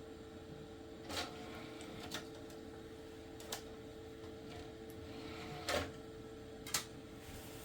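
Open-cased Packard Bell Multimedia R501 running with a steady hum and whine, while a game CD is handled and loaded into its CD-ROM drive: five sharp plastic clicks and clunks, the two loudest near the end.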